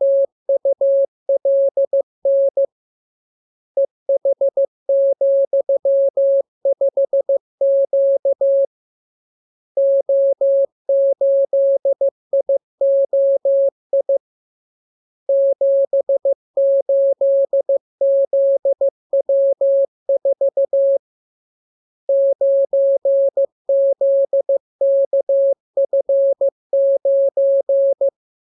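Morse code (CW) being sent as a single steady mid-pitched tone keyed on and off in dots and dashes. The characters come in groups of several seconds, separated by pauses of about a second, as in a practice radiogram for learning to copy by ear.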